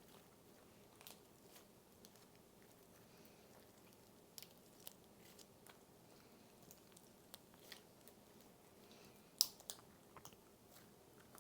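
Cereal slime being slowly stretched and folded by hand, giving soft, scattered crunchy crackles and pops over a faint hiss, with a sharper pop near the end.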